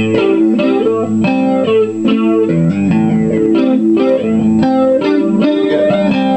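A 1990 Squier II Stratocaster electric guitar played through an amp with added effect, in the second pickup position (bridge and middle together). It picks a riff of single notes and chords, ending on a held chord that rings out near the end.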